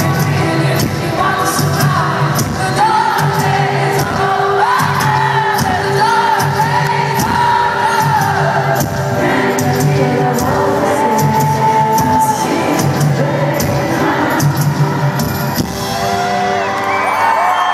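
A live rock band plays loudly in a large arena: a woman's lead vocal over drums, harp, electric guitar and keyboards, with the crowd whooping along. Near the end the bass and drums drop out.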